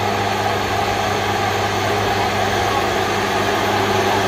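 SAME Laser 150 tractor's diesel engine running steadily under load while it works the field, a constant low hum over an even hiss.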